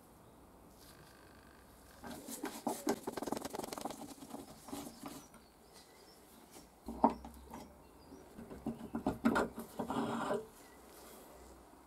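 Rusty cast-iron hand plane being taken apart by hand: loose metal parts rattle, click and scrape against each other and the bench, with one sharp knock about halfway through, then more rattling as the handle is worked off its rod.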